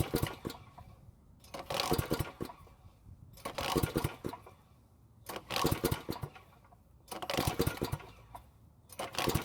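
Powermate generator's small engine being cranked with its recoil starter rope, about six pulls roughly every two seconds, each a brief burst of rope whir and engine turning over. The engine never fires, even with starting fluid sprayed in.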